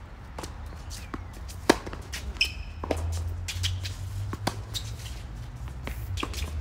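Tennis ball struck by rackets and bouncing on a hard court during a doubles rally: a string of sharp pops, the loudest about a second and a half in, with a brief squeak near the middle and a steady low rumble underneath.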